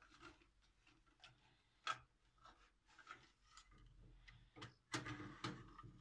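Faint scattered clicks and knocks of a plastic 2.5-to-3.5-inch SSD adapter caddy being handled and fitted into a PC case's metal drive bay, with one sharp click about two seconds in and a cluster of louder knocks near the end.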